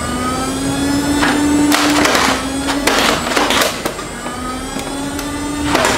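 Nerf Fortnite B-AR blaster's flywheel motors running on an 18650 lithium cell through a boost converter set to 6 volts, a steady whine that rises slowly in pitch. Several darts are fired through the flywheels in quick bursts between about one and four seconds in, and once more near the end.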